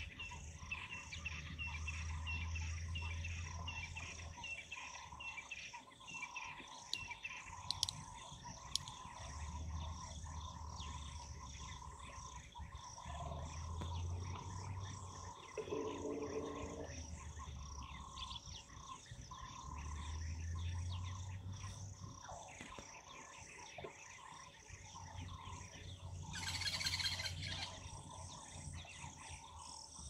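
Small birds chirping and calling, with a louder call near the end.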